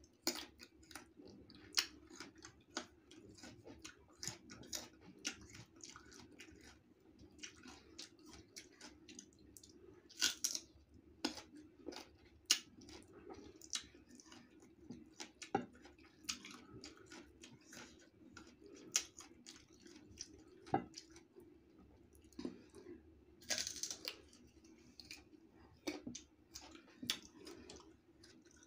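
Close-up chewing of crisp raw green mango, with irregular crunches throughout and a few louder bites, over a faint steady low hum.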